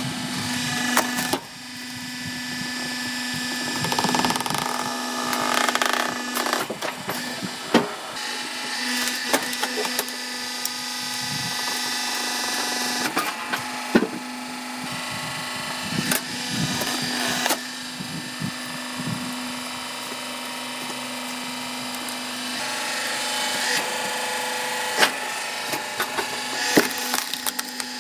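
A wood-processing machine working through logs: wood cracking and splintering with many sharp cracks, over a steady motor hum.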